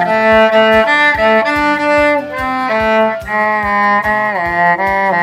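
Background music: a bowed string melody in the violin range over a steady beat.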